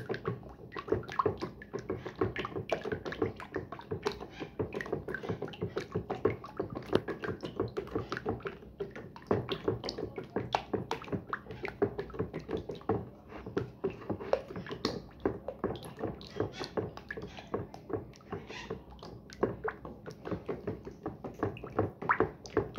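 A wooden stick stirring thickening homemade lye soap batter fast in a plastic bowl: a steady run of rapid knocks as the stick hits the bowl, with wet sloshing of the thick liquid.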